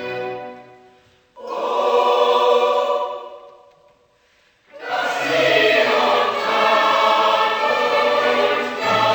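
Choral music with orchestra: a sustained chord swells and dies away, there is a brief silence, and then the choir and orchestra come back in loudly about five seconds in.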